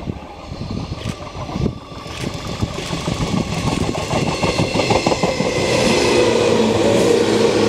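A JR West 113 series electric multiple unit approaches and passes close, growing steadily louder. Its wheels click over the rail joints, and a steady whine joins in from about halfway as the cars run by.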